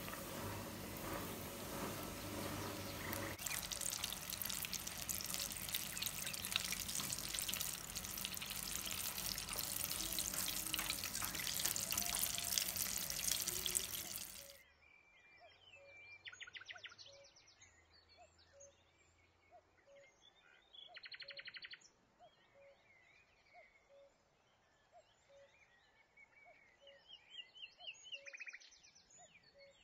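Coated chicken deep-frying in hot oil: a loud, steady sizzle with dense crackling. About halfway through it cuts off abruptly to a quiet background of birds chirping and trilling, with a faint regular tick.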